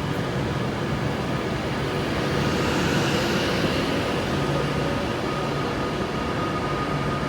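A train running at a station, a steady hum with faint high steady whining tones. A swell of hiss rises and fades about three seconds in.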